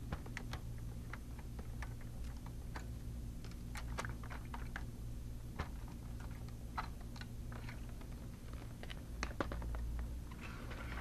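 Scattered light clicks and taps of a laptop's plastic parts being handled and unclipped during disassembly, over a low steady hum.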